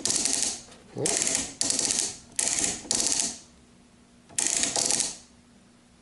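Cordless power tool from a Craftsman V20 kit, triggered on and off in about six short bursts of fast rattling, each about half a second long. It is running on a nearly flat battery, which the owner suspects is why it behaves oddly.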